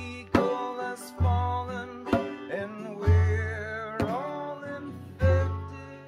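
Banjo and acoustic guitar playing an instrumental passage, with deep beats on a buk (Korean barrel drum) about every two seconds and sharper stick strikes in between; the last notes ring and fade out near the end.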